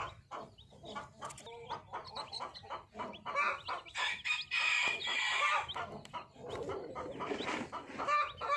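Sussex hen clucking among her newly hatched chicks, which peep in many short, rising chirps. A longer, louder call comes from about four to five and a half seconds in.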